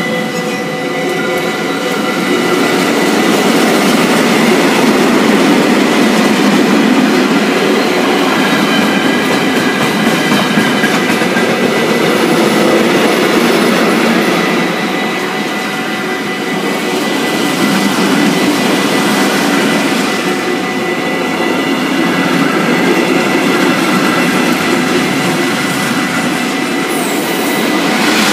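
Freight wagons of a long mixed freight train rolling past close by: steady rumble and wheel-on-rail noise with a thin, steady high squeal running under it.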